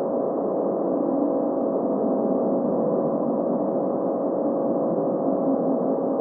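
Steady ambient "space sound" drone: an unbroken humming wash with a few held tones, no strikes or changes.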